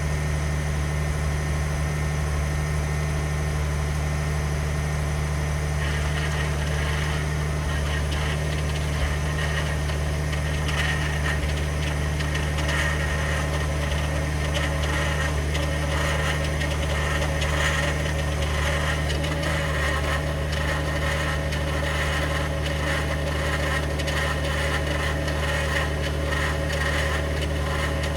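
2021 Ford F-150 PowerBoost's 3.5-litre twin-turbo V6 hybrid running on a cold start with a steady low hum; about six seconds in, a rougher, fluctuating higher grinding noise joins it and continues. This is the cold-start cavitating/grinding noise the truck makes.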